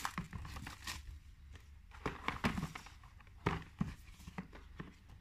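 Cardboard product box being handled on a table: scattered light knocks and scrapes as it is slid, lifted and turned, over a faint steady low hum.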